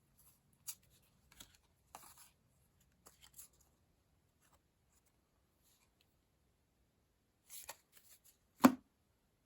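Trading cards being handled: a few soft slides and clicks as cards are flipped, then quiet, ending in a sharper knock near the end.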